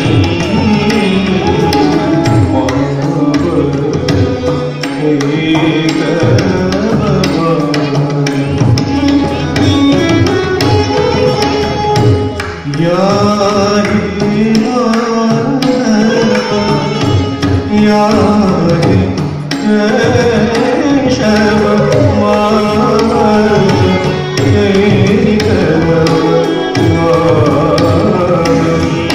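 Indian classical music accompanying Odissi dance: a hand drum keeps the rhythm under a melody whose pitch glides up and down.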